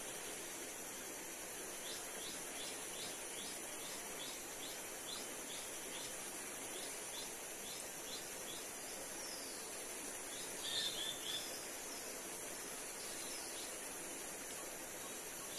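Steady rushing of a wide river's flowing water, with a bird calling in short repeated chirps about twice a second through the first half and a louder cluster of bird calls about eleven seconds in.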